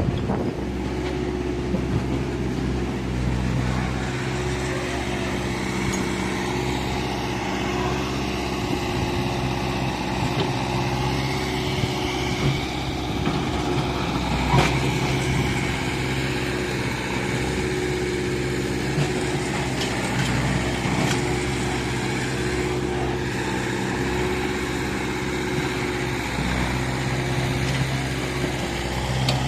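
Engine of a mechanical digger (excavator) running steadily, with a single sharp knock about halfway through.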